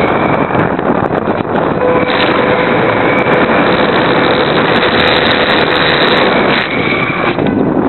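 Wind rushing over the microphone of a spy camera riding on a Super Cub RC model plane in flight, with the thin steady whine of the plane's motor and propeller underneath. The rush eases briefly near the end.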